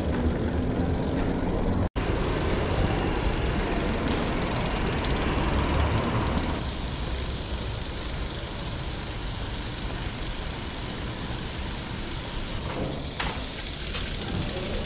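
Steady traffic rumble, with a brief dropout about two seconds in; it turns quieter about six and a half seconds in.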